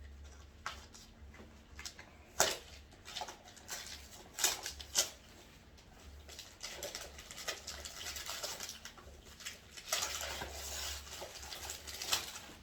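Gift packaging being handled and unwrapped: crinkling and rustling with scattered sharp clicks and taps, and a longer stretch of continuous rustling about ten seconds in.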